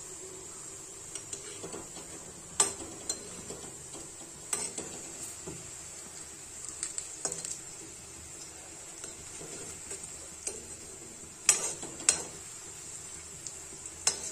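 Spring onion pakoras deep-frying in oil in a steel kadhai on a medium-high flame, a steady sizzle as they crisp. A perforated steel slotted spoon stirs and scrapes them, striking the pan in several sharp clinks, the loudest a couple of seconds in and twice close together near the end.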